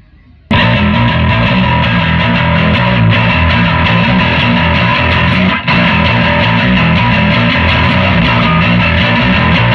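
Loud, distorted heavy rock music with electric guitar and a heavy bass, cutting in suddenly about half a second in.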